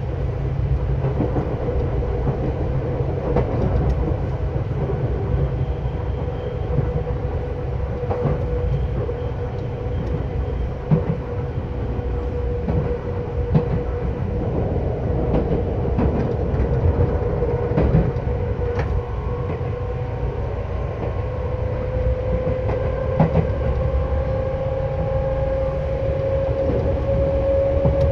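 Seibu 10000 series electric train running, heard from inside the car near the line breaker: a steady low rumble of wheels on rail with scattered rail-joint clicks, and a motor hum that rises slowly in pitch near the end as the train picks up speed.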